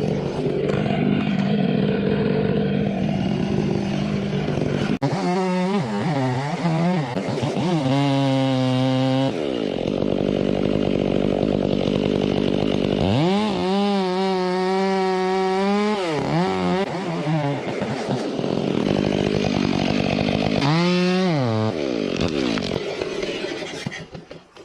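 Chainsaw engine running hard while cutting wood. Its pitch rises and falls in several long swells as the throttle opens and eases, and it drops away abruptly near the end.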